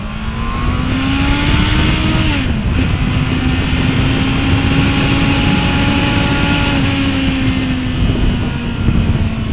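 Honda CBR650R's inline-four engine pulling away under throttle, its pitch rising for about two seconds, then dropping at a gear change about two and a half seconds in before holding steady revs at cruising speed. Heavy wind rush sits under it throughout.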